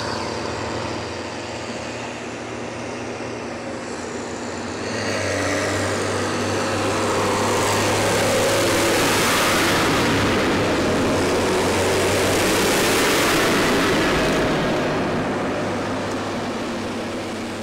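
New Holland T6080 tractors, six-cylinder diesels, towing slurry tankers past on a tarmac road: a steady engine drone with tyre and road noise. It grows louder about five seconds in as the first tractor comes by, stays loud through the middle and eases off near the end as the next one follows at a distance.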